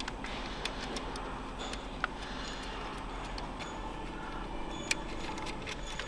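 A few isolated sharp metallic clicks and taps of hand tools and injector hold-down brackets being fitted on an engine, spread out over several seconds against a steady background hiss.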